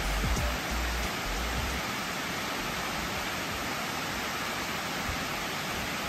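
Water pouring over a concrete dam's spillway: a steady, even rushing of falling water. Low music notes die away within the first two seconds.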